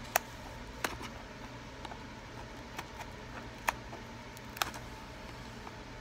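Handling of a shipping box: scattered sharp clicks and taps, four of them louder than the rest, over a faint steady hum.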